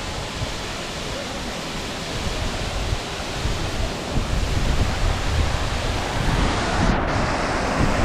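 Steady rushing of a tall mountain waterfall crashing onto rocks. Wind rumbles on the microphone in the second half.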